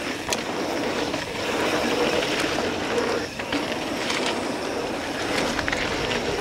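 Mountain bike rolling fast over hard-packed dirt: tyre noise and wind rushing over the bike-mounted camera's microphone, with a few short clicks and rattles from the bike.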